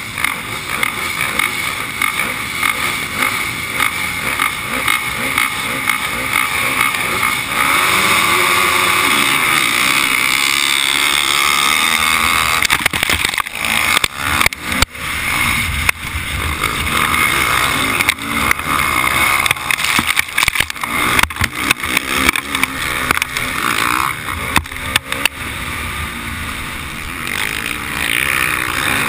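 Motocross bike engine running hard at high revs, louder from about a quarter of the way in, with wind on the microphone. From about the middle on, a run of sharp knocks and rattles from riding over the rough dirt track.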